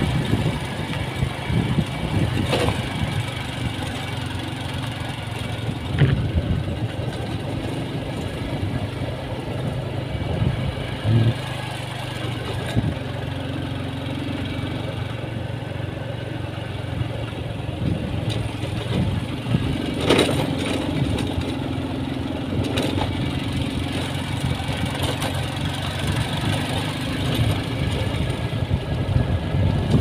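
Engine hum and road noise of a moving vehicle, heard from on board: a steady low drone under a rushing noise, with a few short knocks and rattles from bumps in the road.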